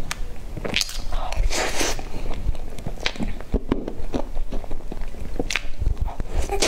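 Close-miked eating sounds of soft cream-frosted sponge cake: wet smacking and chewing, an irregular string of short clicks and squelches.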